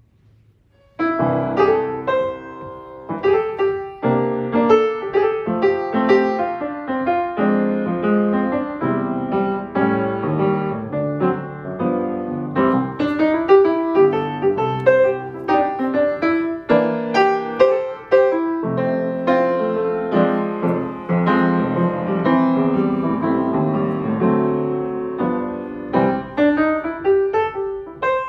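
A refurbished 1952 Wurlitzer spinet piano being played: a continuous stream of notes and chords that starts about a second in.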